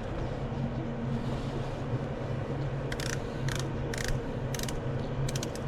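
A steady mechanical hum, with a string of short, sharp metallic clicks in the second half.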